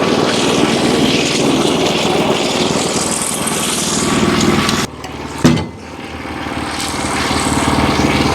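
Wood-Mizer LX25 portable band sawmill running under load, its small engine droning steadily while the band blade saws through a hemlock beam. About five seconds in the sound drops off abruptly, a single sharp knock follows, then the engine and cutting noise build back up.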